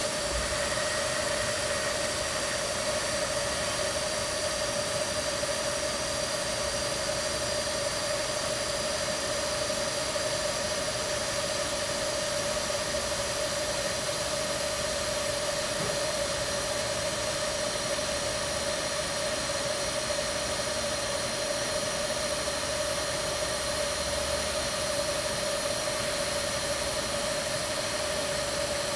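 TIG welding arc burning steadily on thin stainless steel as a bead is run along the outside corner of a joint: an even, continuous hiss with a constant mid-pitched tone under it.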